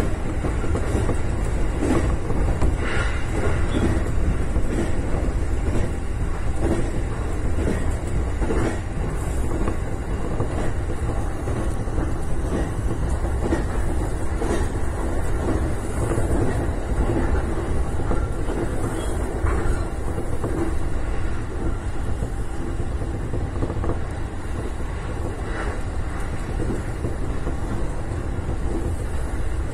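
Electric commuter train running at speed, heard from inside at the front: a steady rumble of wheels on rail, with irregular clacks over rail joints.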